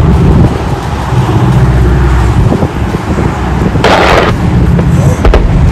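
Loud, low rumble of an airshow's gasoline-fuelled pyrotechnic wall of fire exploding, mixed with the drone of propeller aircraft engines. A brief sharper burst of noise comes about four seconds in.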